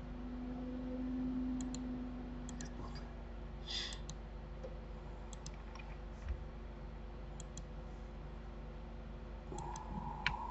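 Computer mouse buttons clicking now and then: several separate faint clicks, some in quick pairs, over a low steady hum.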